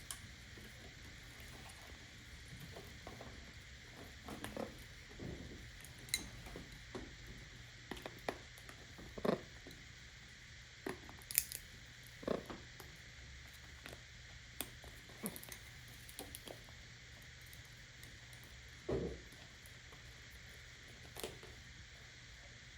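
Parrot's beak gnawing and cracking at a nut shell: scattered, irregular clicks, cracks and small knocks, a few louder snaps among them.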